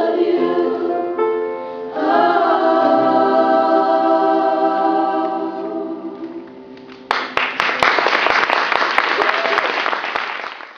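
School choir singing the closing chord of a song, holding it and letting it die away. About seven seconds in, audience applause breaks out and continues.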